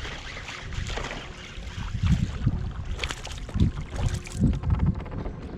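Wind buffeting the action-camera microphone in gusts, a rough low rumble. Brief sharp knocks and rattles are heard between about three and four and a half seconds in.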